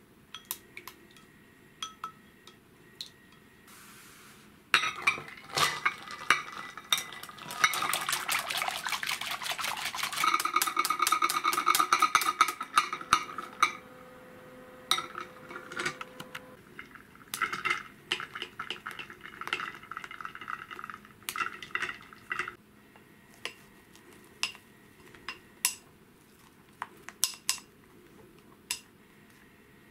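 Metal wire whisk beating fresh cream by hand in a glass bowl: a fast run of light clinking strokes from about five seconds in until about three-quarters of the way through, as the cream is whipped to a soft, loosely whipped stage. After that come only scattered single clinks of the whisk against the bowl.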